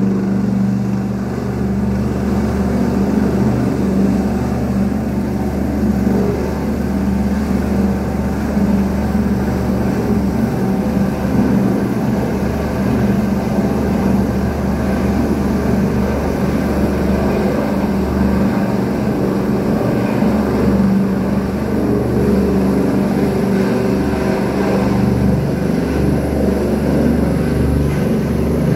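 Rescue helicopter running steadily: an even, loud drone from its turbines and rotor, with a steady low hum that neither rises nor fades.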